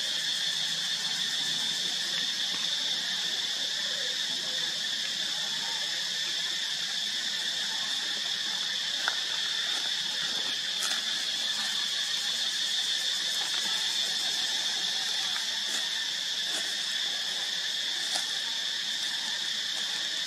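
A steady, unbroken high-pitched chorus of insects, with a few faint ticks.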